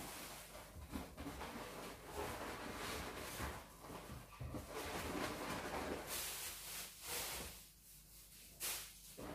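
Latex balloons and a clear plastic bag being handled, rustling and rubbing in irregular bursts as small balloons are tucked into a balloon garland. There are a couple of sharper crinkly bursts about six and eight and a half seconds in.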